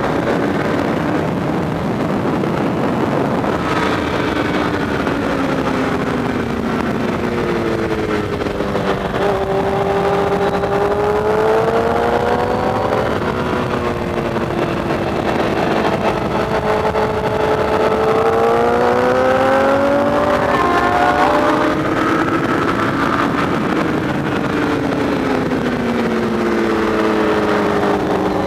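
Sport motorcycle engine at high revs, its pitch rising as it accelerates and falling as it slows into corners, over a steady rush of wind.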